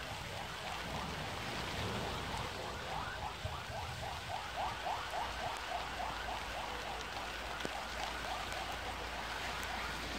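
Steady hiss of rain falling on garden foliage. Over it runs a long series of short, quick chirps, about three a second, which fade out near the end.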